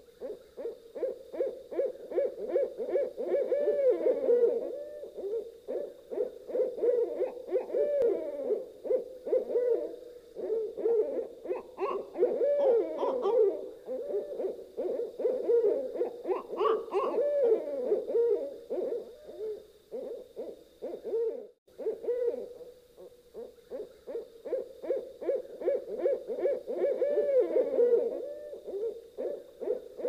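Owls hooting: many short hoots following one another quickly and overlapping, with a brief lull about two-thirds of the way through.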